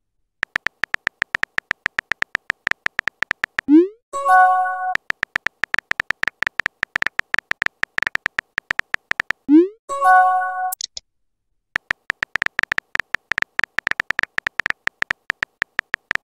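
Texting-app sound effects: rapid, steady phone-keyboard tapping clicks as a message is typed, broken twice, about 4 and 10 seconds in, by a short upward swoosh and a brief chime as a new message posts to the chat.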